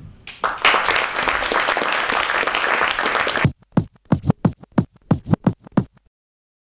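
Closing music sting: a dense, noisy passage, then a run of about nine quick record-scratch-like swoops that cut off abruptly.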